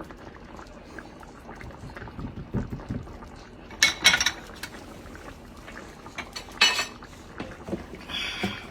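Kitchen utensils clinking and scraping against cookware, with short, louder clatters about four, seven and eight seconds in.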